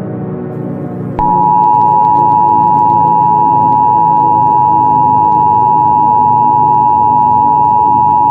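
Emergency Alert System two-tone attention signal, two steady pure tones sounding together just below 1 kHz, which starts abruptly about a second in and stays loud and unbroken. Dark ambient music plays underneath.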